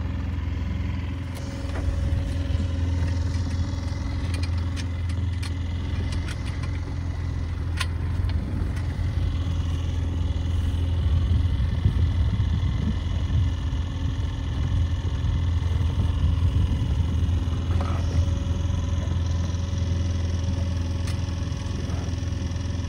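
Small outboard motor on a Compac 16 sailboat running steadily under way, a constant low hum. A few sharp clicks are heard in the first several seconds.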